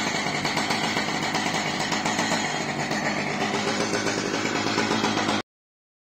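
An engine idling steadily with a fast, even flutter, cutting off abruptly near the end.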